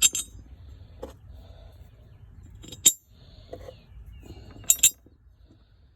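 Small metal parts clinking as they are set down: the removed pulley and its bolts knocking against metal, a clink at the start, another about three seconds in and a quick double clink near the end.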